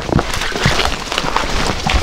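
Footsteps crunching through forest undergrowth, with branches and dry leaves scraping against clothing and backpacks, close to the microphone. Irregular snaps and knocks from twigs and the walking pole.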